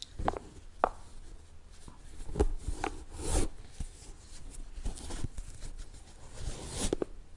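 Shoelaces being pulled and tied on a sneaker: a series of short rubbing and scraping rustles as the laces are tugged tight, with a few sharper ticks.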